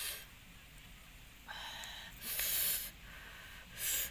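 A person eating, breathing in and out sharply through the mouth in a few short hissing breaths, the loudest near the middle.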